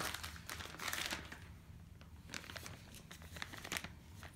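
Plastic packaging crinkling and rustling as it is handled, in short irregular crackles, busiest in the first second and a half and sparser after.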